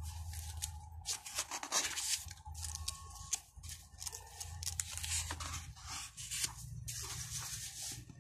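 Hands rustling and crinkling the paper pages of a picture book, with irregular crackles throughout and a page turned near the end, over a low steady hum.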